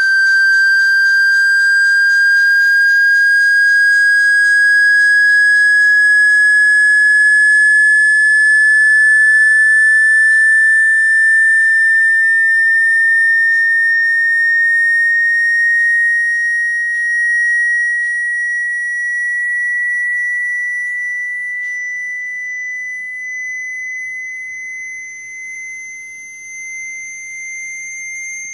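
Electronic sine-wave tone, a single high whistle-like pitch gliding slowly upward, played to shake water out of a phone speaker. It gets somewhat quieter in the last third.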